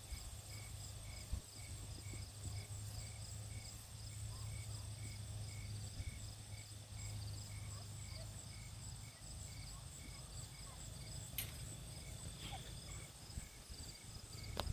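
Insects chirping in the grass: one regular chirp about twice a second over a higher continuous trill, with a low steady hum beneath. Two brief sharp clicks come late on.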